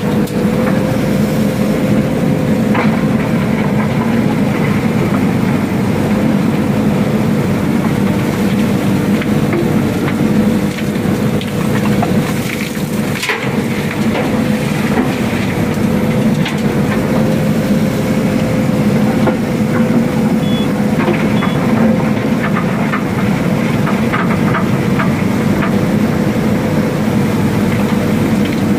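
JCB backhoe loader's diesel engine running steadily, heard from inside the operator's cab, with a constant hum-like tone over it. A few scattered knocks and clicks come as the backhoe levers are worked.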